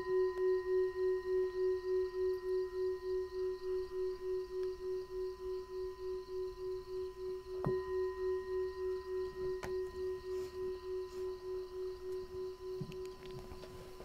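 A meditation bell is struck and rings with one steady low tone, wavering about three times a second as it slowly fades. It is struck again more softly about eight seconds in. This is the bell that closes a sitting meditation.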